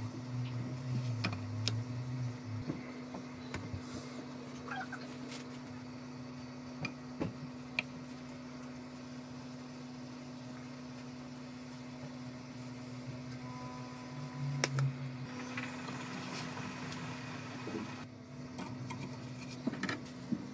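A steady low hum from a running motor or fan, with scattered short clicks and light scrapes of a spoon and spatula against a non-stick frying pan while pancakes are spooned and flipped.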